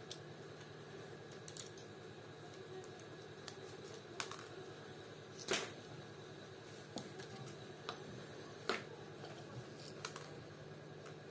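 Faint, irregular clicks and taps of a small plastic pedometer and its parts being handled and fitted, a second or two apart, over quiet room tone.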